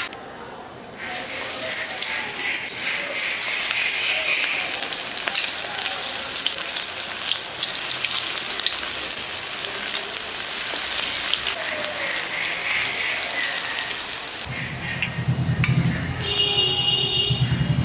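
Gram-flour-battered pointed gourd and onion fritters deep-frying in hot oil in a steel wok, a steady crackling sizzle that starts about a second in. Near the end the sizzle turns lower and fuller as a slotted spoon stirs through the oil.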